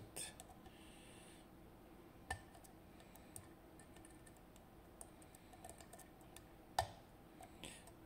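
Faint small clicks of bicycle-spoke picks working the tapered pins of an IZIS pin-tumbler lock cylinder, with a sharper click about two seconds in and the loudest near the end, as the last pin sets and the lock opens.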